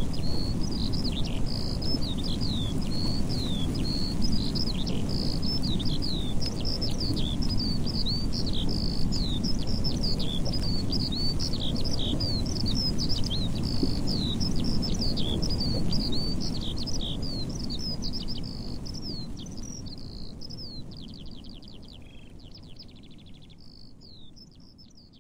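Eurasian skylark singing: a long, unbroken stream of fast, high chirps and whistled notes, with a rapid buzzy trill near the end, over a low background rumble. The whole recording fades out over the last several seconds.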